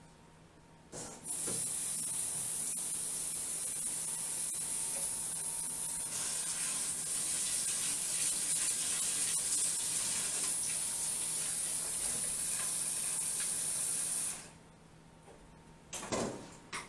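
Water running from a pull-down kitchen faucet into a container of mesquite wood chips to soak them: a steady hissing spray that starts about a second in and fills out fuller about halfway, then is shut off sharply. A couple of short knocks follow near the end.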